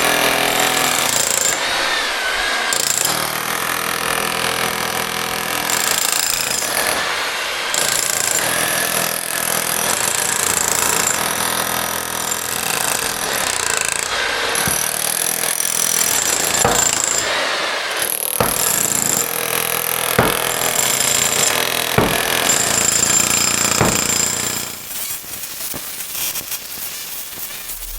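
Jackhammer breaking up old concrete beneath a wooden house floor: continuous hammering that changes abruptly a few times, with several sharp knocks in the second half.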